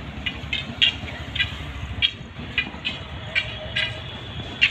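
Low, steady rumble of a freight train hauled by a WAG-9 electric locomotive running on the track, with short high-pitched chirps coming every half second or so.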